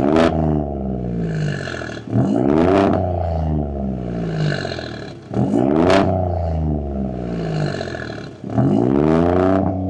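A 2022 Ford F-150 Raptor's twin-turbo 3.5-litre EcoBoost V6, heard through a Borla ATAK cat-back exhaust, revved in repeated blips: the pitch climbs sharply and falls back about every three seconds. There is a short sharp crack near the top of each rev.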